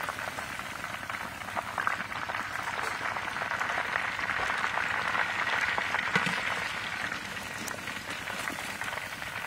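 Hot oil sizzling and crackling steadily in a large wok as whole chickens deep-fry.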